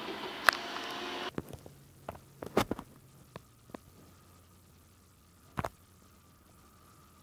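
Handheld camera handling: a few sharp knocks and clicks over quiet, the loudest a cluster about two and a half seconds in and another near six seconds. A steady noise cuts off suddenly about a second in, and a faint steady hum comes in from about four seconds.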